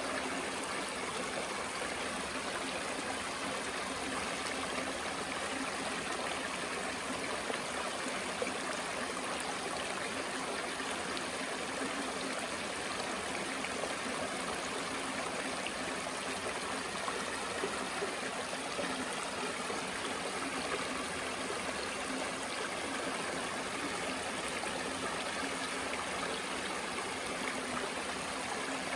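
Shallow creek water running over flat rock ledges in small riffles: a steady, even rush of water.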